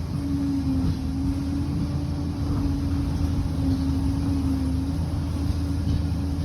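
Liebherr 746 crawler bulldozer's diesel engine running steadily under work, a low heavy drone with a steady whine that comes in just after the start and holds.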